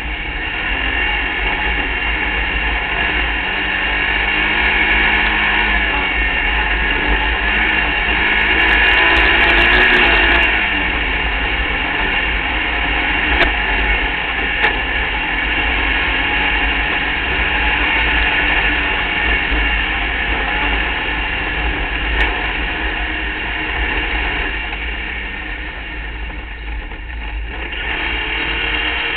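Engine of an open-wheel hill-climb race car heard from on board, running hard at high revs with a high, drill-like whine. Its pitch rises and falls as it changes speed, easing off briefly near the end before pulling again.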